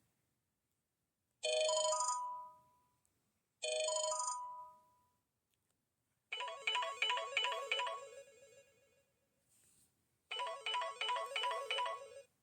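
Samsung SPH-M390 phone ringtones playing through the phone's speaker. First a chime sounds twice, about two seconds apart, each note fading out. Then a fast, repeating electronic melody plays twice with a short pause between.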